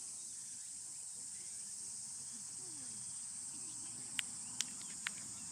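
Steady high-pitched drone of summer insects in an outdoor chorus, with three sharp clicks near the end.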